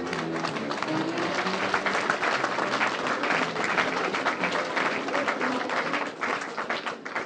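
Crowd applauding, many hands clapping densely, with music playing underneath; the applause thins and fades near the end.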